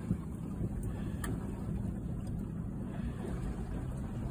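Steady low rumble of wind and way-noise aboard a sailboat under sail, with a faint click about a second in.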